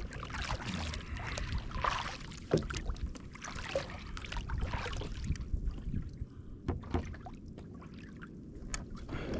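Water sloshing and splashing around a kayak at sea, with scattered small splashes and knocks. It quietens a little past halfway.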